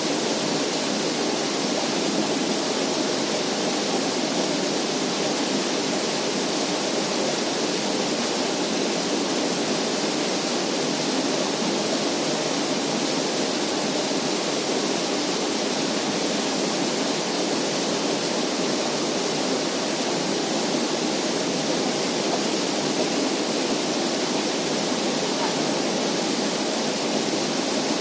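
Steady, unchanging rushing noise at a constant level, with no clicks, tones or changes.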